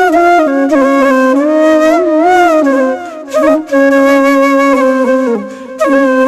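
Background music: a solo flute playing a slow, gliding melody of held notes, with a few short pauses for breath.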